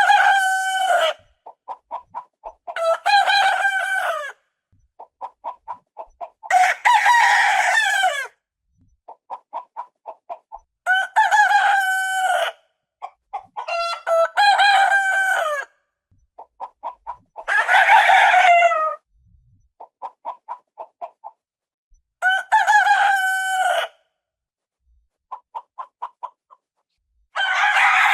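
Rooster crowing repeatedly, about eight long cock-a-doodle-doo crows of roughly one and a half seconds each, with short runs of quick clucks between them.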